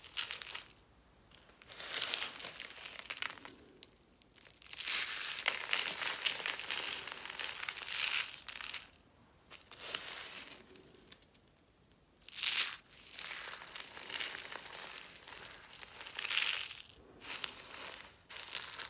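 Dry soap being crushed and crumbled close to the microphone: crisp crunching and crackling in several stretches, with short quiet pauses between them.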